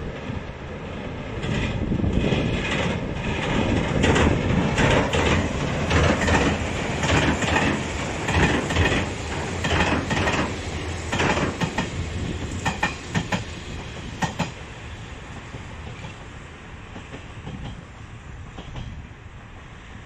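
Hanshin Railway limited express electric train passing close, its wheels clattering over the rail joints in quick runs of strikes. The clatter dies away over the last few seconds as the train moves off.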